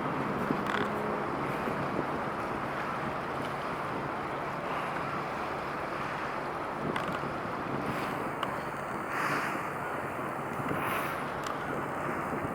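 Wind blowing on the microphone as a steady rush, over a faint low hum, with a few brief gusts late on.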